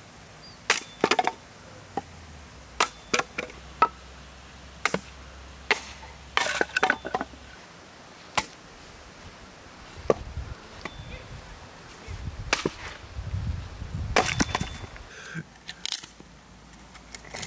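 A small axe chopping and splitting firewood on a stump: a string of sharp cracks and knocks, several seconds apart at first, then closer together. Near the end comes a stretch of lower, rougher clatter and rustling with a few more knocks as the split wood is handled.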